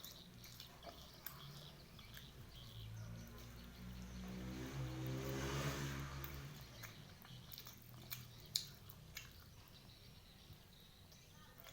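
A motor vehicle passing: a faint, low engine hum swells over a few seconds, peaks about halfway through, then fades away. Scattered faint clicks sound around it.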